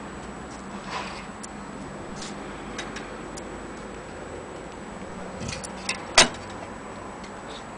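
Scattered mechanical clicks and taps from a vintage Olympia portable typewriter being handled, irregular rather than a typing rhythm, with one louder clack about six seconds in.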